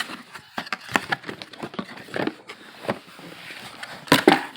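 A box and its packaging being opened and handled: irregular rustling, crinkling and knocking, with a louder clatter about four seconds in.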